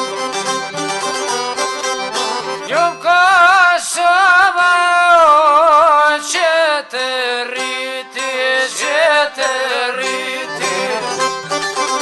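Albanian folk music, instrumental: quick plucked string notes with accompaniment, and a strong wavering lead melody line from about three seconds in to about six and a half seconds in.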